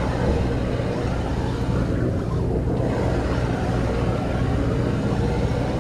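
Boat engine running steadily at a low, even drone, with a wash of wind and water noise over it.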